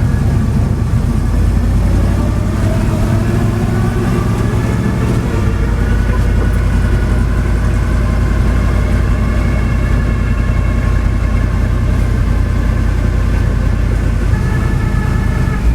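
Vehicle engine running steadily, with a heavy low rumble and a faint engine hum that rises slightly in pitch a few seconds in.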